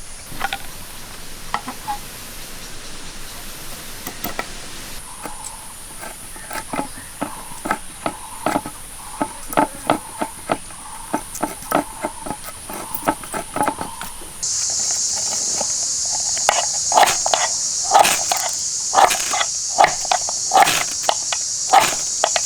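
Rapid run of sharp knocks, like a blade or tool striking firewood, over a steady high insect drone. The drone jumps louder abruptly about two-thirds of the way through.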